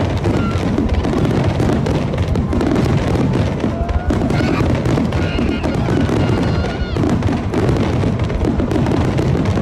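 Fireworks display: a dense, continuous barrage of shell bursts and crackling, with music and voices mixed in.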